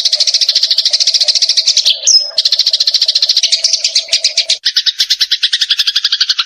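Songbird singing a very fast, high trill of rapidly repeated notes, broken by a short high whistle about two seconds in. Near the end it switches to a lower, slightly falling trill that cuts off abruptly, as in an edited, looped song recording used for training caged songbirds.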